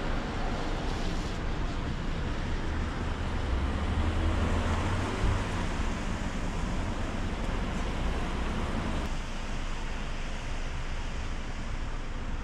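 Steady outdoor background noise: a low rumble under an even hiss, swelling about four seconds in and easing a little after nine seconds.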